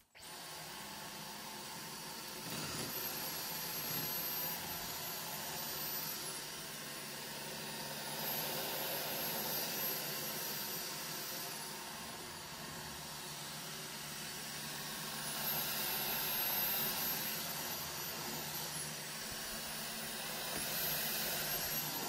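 Dyson V15 Detect cordless stick vacuum running with its Laser Slim Fluffy cleaner head, cleaning along a corner and the baseboards. The motor noise is steady and rises and falls in loudness every few seconds.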